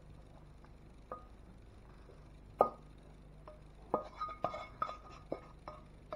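A spatula knocking and scraping against a wok as stir-fried food is pushed out onto a serving plate: scattered clinks with a short metallic ring, the loudest about two and a half seconds in, then a quick run of knocks between about four and six seconds.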